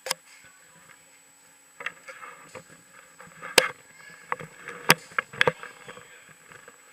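Handling noise on a helmet-mounted action camera in its case: a string of sharp knocks, the loudest about three and a half seconds in and a quick pair near the end, with rustling and scraping between them as the wearer moves about. No kart engine is running.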